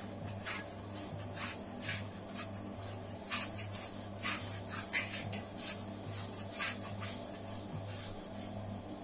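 Bread dough being scraped and pulled out of a large dough mixer's bowl by hand and with a scraper: short scraping strokes at irregular intervals, about two a second, over a steady low hum.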